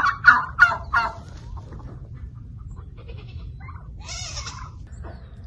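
Barnyard animal calls: four loud, quick calls in about the first second, then fainter scattered calls and a brief rustle about four seconds in.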